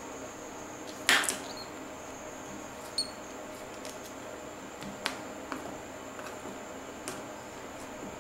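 A few short, sharp clicks and taps over a steady hiss. The loudest comes about a second in, and fainter ones follow every second or two.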